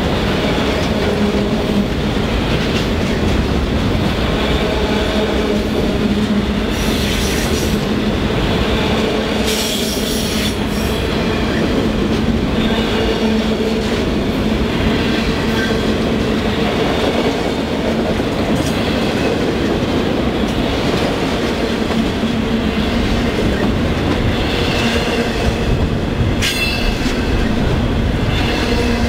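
Enclosed multilevel autorack freight cars rolling past on steel rails: a steady loud rumble of wheels on track with high ringing tones. Brief sharp high screeches come about seven, ten and twenty-six seconds in.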